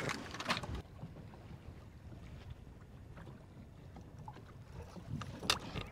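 Handling noise and knocks as a fish goes into a plastic cooler and the lid is moved, in the first second. Then a low, steady rumble of wind and water around a small boat, with one sharp knock near the end.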